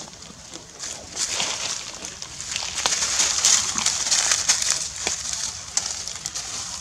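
Dry leaf litter crackling and rustling as a monkey moves over it, a run of sharp crackles that grows louder in the middle and eases off near the end.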